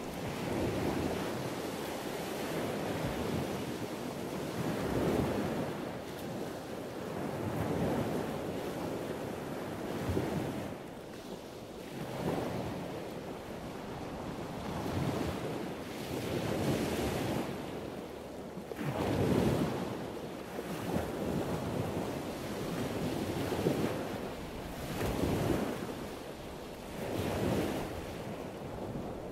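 Small waves breaking and washing up a sandy beach, the rush swelling and fading every few seconds, with wind on the microphone.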